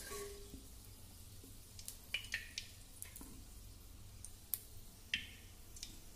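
Hot oil heating in a clay pot on a gas flame, giving a few faint scattered ticks and pops over a low steady hum.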